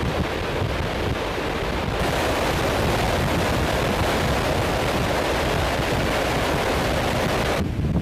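Steady rush of airflow and engine noise in the cargo hold of a military transport aircraft flying with its rear ramp open. The noise changes abruptly about two seconds in, getting brighter, and again near the end, where the high end drops away.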